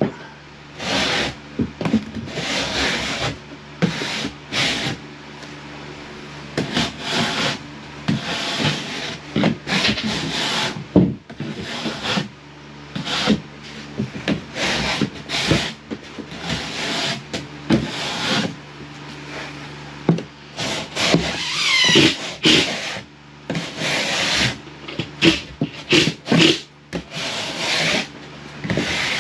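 A drywall panel being worked by hand in repeated rough scraping strokes, irregular in pace, with a steady low hum underneath.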